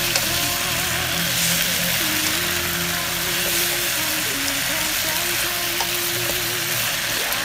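Stir-fry sizzling steadily in a hot pan as bamboo shoots, pork, chilies and kaffir lime leaves are turned with a spatula, with a few small ticks from the spatula.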